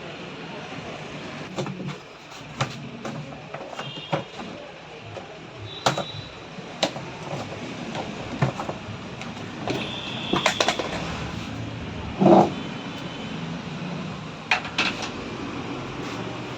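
Hand tools and metal parts of a top-load washing machine clinking and knocking during disassembly: scattered sharp taps, some with a brief metallic ring, and one louder knock about twelve seconds in, over a steady background hum.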